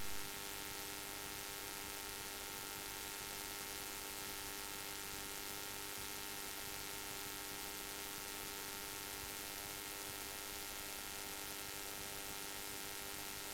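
Steady electrical hum and hiss on the aircraft's radio and intercom audio between transmissions, with several constant tones and no changes.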